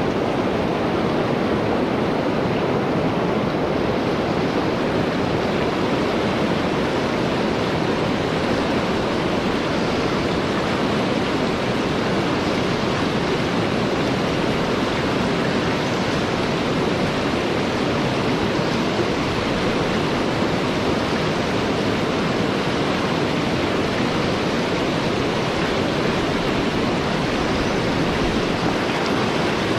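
Fast, shallow river riffle rushing and churning over stones, a steady, loud, unbroken rush of water picked up close to the surface.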